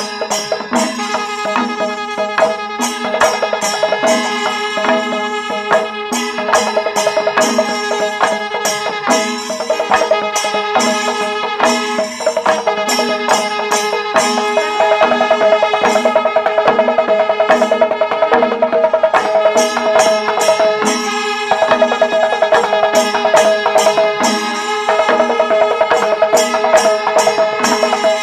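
Traditional South Indian festival music: a steady, held melody line with many overtones over quick, sharp drum and cymbal strokes that keep a dense rhythm throughout.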